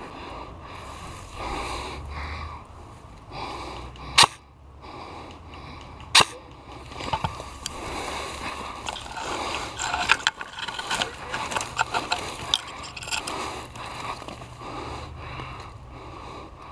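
Two sharp airsoft gun shots about two seconds apart, over close breathing and the rustle of gear and movement; a run of lighter clicks and crackles follows later.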